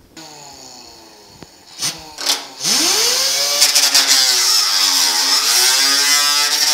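Pneumatic angle grinder with a coarse sanding disc. After two short blips, it spins up about two and a half seconds in and grinds steadily into rusty steel sheet metal. Its pitch sags under load a little after five seconds and recovers. This is rust blisters on the cab panel being ground out down to bare metal.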